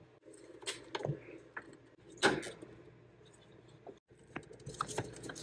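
A few sharp clicks and knocks of hands handling parts in the engine bay, the loudest a little past two seconds in, then a run of small rattling clicks near the end.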